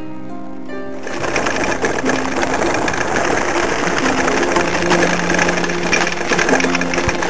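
Mountain bike rattling and clattering as it rolls over a rough, stony trail, starting about a second in. Plucked-string background music plays underneath.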